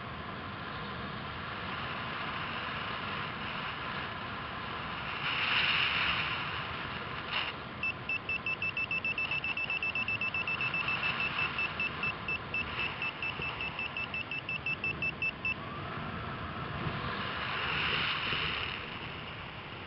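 Paragliding variometer beeping rapidly, about five short high beeps a second for some eight seconds in the middle, the pattern it gives while the glider climbs in lift. Underneath, steady wind rush on the microphone that swells twice.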